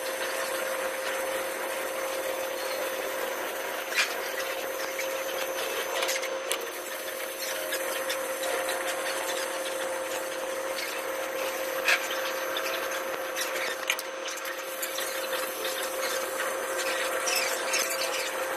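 Welding with a gasless flux-core MIG welder: a steady crackling hiss over a constant whine, with a few sharp pops.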